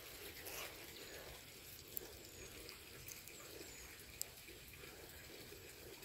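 Faint outdoor ambience with a few short, faint high chirps and two sharp clicks, about two and four seconds in.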